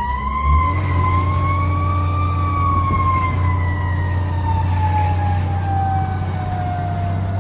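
Fire truck's mechanical siren winding up to a peak about two seconds in, then slowly winding down in one long falling wail, over the steady low rumble of the truck's engine.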